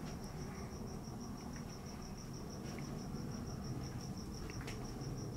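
A cricket chirping steadily: a faint, high pulsed note repeating about five times a second, over a low room hum.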